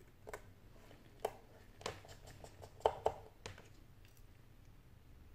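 Light clicks and taps of a precision screwdriver and small parts while an iPhone 6 display assembly is worked on, with a screw set into a metal parts tray. About a dozen separate ticks over three seconds, the two loudest close together about three seconds in.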